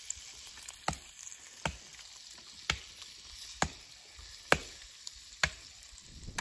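Six sharp strikes on wood, about one a second, like a tool hitting a tree trunk, over a faint steady hiss.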